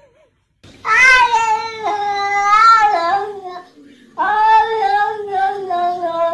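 Cat yowling: two long, wavering calls, the second starting about four seconds in.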